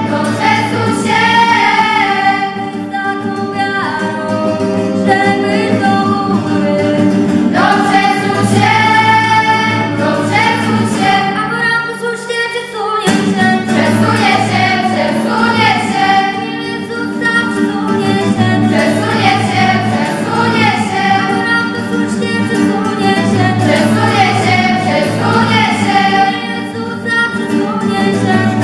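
Girls' vocal group singing a church song together, with an acoustic guitar strummed along. The singing breaks off briefly about twelve seconds in between phrases.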